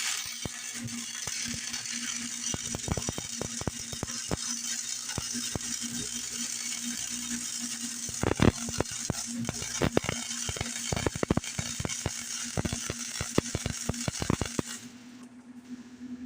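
Welding arc crackling and sizzling steadily on 1/8-inch steel, with the welder turned down to 70 amps and a low steady hum underneath. The arc cuts off suddenly about a second and a half before the end.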